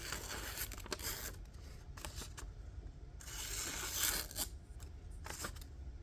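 Freshly sharpened Buck 110 blade slicing through paper in a few strokes, each a dry hissing rasp lasting about a second, with a few light clicks. The edge is razor-sharp and cuts cleanly.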